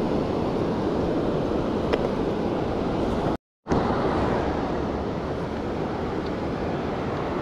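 Steady surf washing over the shore and wind buffeting the microphone, with a brief total dropout a little past halfway.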